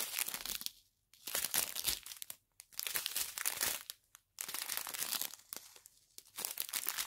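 Small plastic zip bags of round diamond-painting drills crinkling as they are handled and flipped through, in about five short bursts with brief pauses between.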